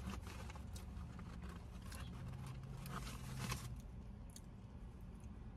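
Faint eating sounds: soft mouth clicks and light handling of food in a plastic takeout tray, with a brief low hum in the middle.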